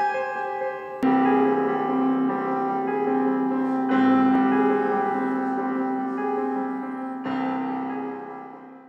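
Intro music of held keyboard chords that change about a second in, again around four and seven seconds, and fade out near the end.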